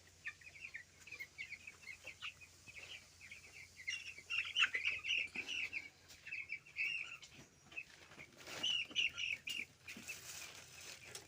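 Flock of 12-day-old chicks peeping: many short, high chirps overlapping, on and off.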